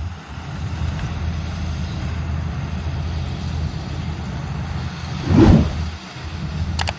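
Combine harvester engine running with a steady low rumble, with a brief loud whoosh about five and a half seconds in.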